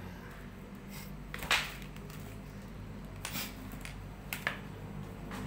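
A few short sharp clicks and knocks, the loudest about a second and a half in, over a low steady hum.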